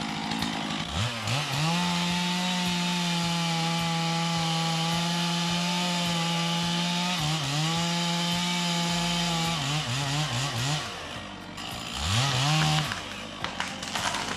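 Chainsaw revved up to full throttle about a second in and held there for several seconds, with a brief dip, then a few short throttle blips and one more rev near the end.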